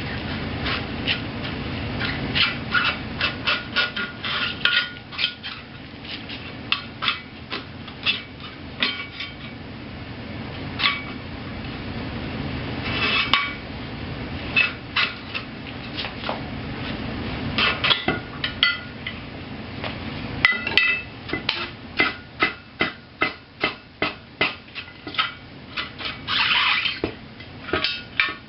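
Screwdrivers clinking and clanking against a wheel rim as a tire bead is pried up and over the rim edge by hand, in quick runs of sharp metal taps with short pauses between.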